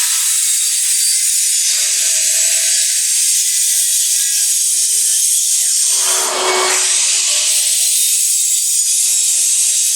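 Power saw running steadily and cutting lengths off a 2x10 board, with a brief deeper stretch about six seconds in as the blade works through the wood.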